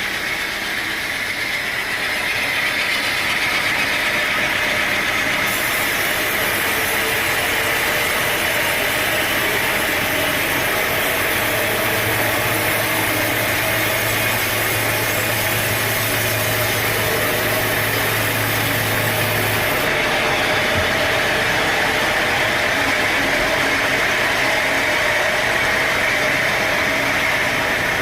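Sawmill machinery running steadily, a continuous mechanical noise, with a low steady hum joining about a third of the way in and stopping a little past the middle.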